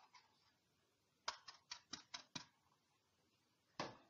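Faint, sharp clicks over near silence: a quick run of about six a little over a second in, then two more near the end.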